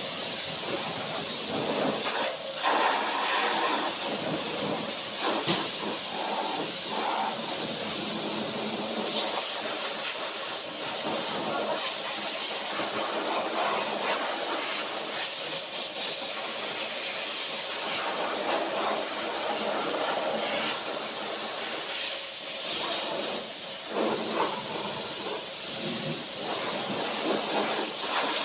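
High-pressure washer jet spraying water onto a mini excavator's body and tracks, the spray noise swelling and dipping as the wand moves over the machine.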